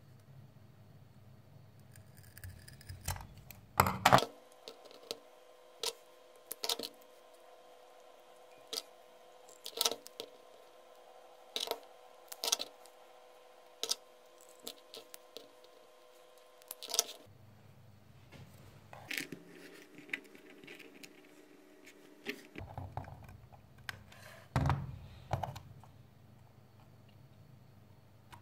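Wooden ice cream sticks clicking and clacking against each other and the tabletop as they are handled and laid out: a scattered series of light, sharp taps, loudest about four seconds in and again near the end, over a faint steady hum.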